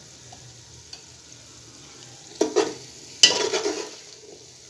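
Metal slotted spoon scraping and clanking against a large aluminium pot as peas in spiced oil are stirred, with a few sharp clatters about halfway in and a louder run of scraping near the end. The oily masala sizzles quietly underneath.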